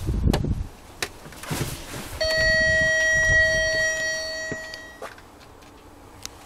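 A steady single-pitched tone in the cab of a 2008 Iveco Stralis truck starts about two seconds in and holds for about three seconds before cutting off. Some knocks of the camera being handled come at the start.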